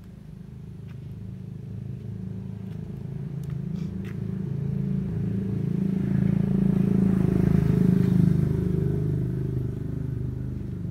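An engine running with a low, steady hum that grows louder over several seconds and eases off slightly near the end.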